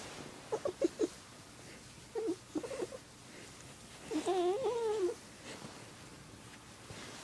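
A cat's girly warbling purr: two short bouts of quick wavering chirps in the first three seconds, then a longer wavering call about four seconds in that lasts about a second.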